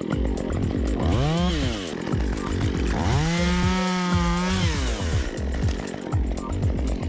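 Chainsaw engine blipped briefly about a second in, then revved up and held at full throttle for about a second and a half before dropping back down. Background music with a steady beat runs underneath.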